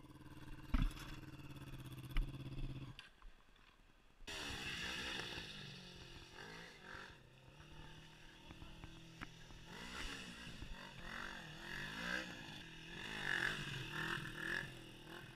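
Honda CB500 parallel-twin motorcycle engine running at a steady idle, cutting out briefly about three seconds in, then revving up and down in repeated swells as the bike is ridden and wheelied.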